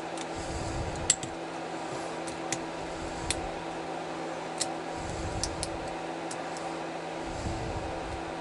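Scattered small metallic clicks and ticks from a lock pick working the pins inside a Kasp padlock's keyway, about a dozen in all, over a steady background hum.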